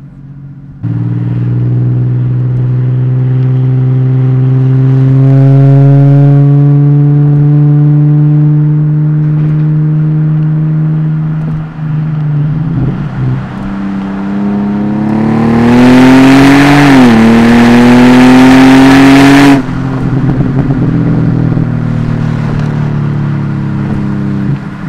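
Ford FG Falcon XR6's 4.0-litre straight-six through an aftermarket exhaust, heard close to the tailpipe: the engine note climbs slowly under acceleration, eases off around halfway, then climbs hard again with a brief drop in pitch partway before cutting off suddenly to a steady cruise. The microphone is peaking, so the loudest stretch sounds harsh and distorted.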